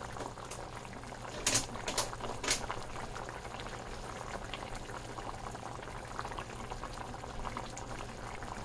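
A curry of green tomatoes and fish bubbling steadily at a simmer in a pot, with three sharp clicks close together about two seconds in.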